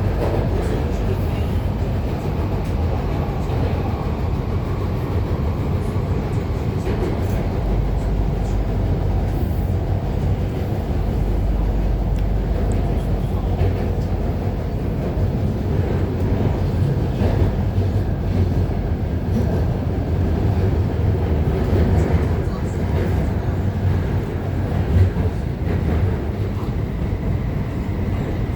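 Guangzhou Metro Line 5 linear-motor train running through a tunnel, heard from inside the carriage: a steady low rumble with occasional faint clicks and rattles.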